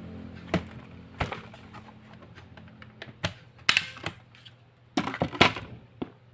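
Hard plastic clicks and knocks from a laptop's casing being handled as it is taken apart, coming irregularly, with the loudest cluster of clicks past the middle and again near the end.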